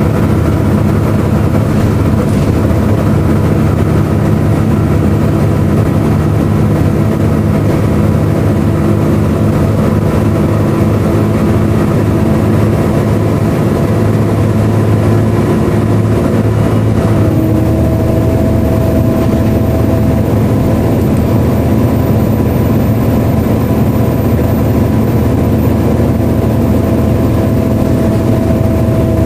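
Volvo B7LA bus's six-cylinder diesel and its engine cooling fan running steadily, with a loud whine the uploader likens to a hoover. About two-thirds of the way through, a new, higher whining tone sets in and holds.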